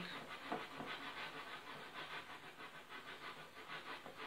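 Wire whisk beating thick pancake batter in a bowl: a soft, rhythmic swishing of quick, even strokes.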